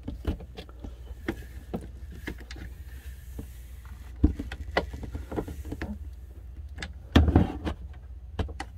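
Hard plastic parts clicking and knocking as an RV toilet's plastic water valve assembly is handled and fitted back into place by hand, with a louder clatter about seven seconds in.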